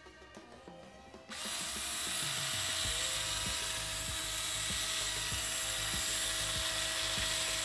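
Small cordless screwdriver (TOPSHAK TS-ESD1, 4 V) motor running steadily with no load, switching on abruptly about a second in with an even whir and faint ticking.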